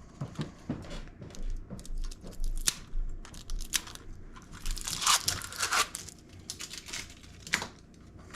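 Cheap plastic toy drone and its packaging being handled: a run of irregular plastic clicks and crinkling, with a longer, denser stretch of crinkling about five seconds in.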